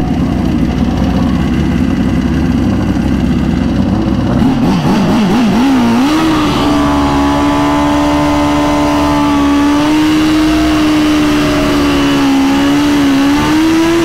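Turbocharged Suzuki GSX-R1000 drag bike's inline-four engine running. Its revs waver for a couple of seconds partway in, then it is held at one steady high rpm for about seven seconds, and the revs fall off near the end.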